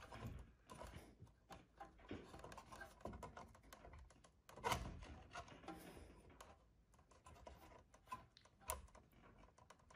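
Faint, irregular small clicks and scrapes of a plastic wire plug being worked loose from a LiftMaster garage door opener's circuit board, with a sharper click about halfway through and another near the end.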